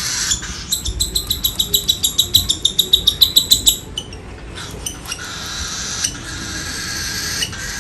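Baby cockatiel's food-begging calls: a rapid, even run of short high chirps, about five or six a second, lasting about three seconds and stopping abruptly about four seconds in. A few faint clicks follow.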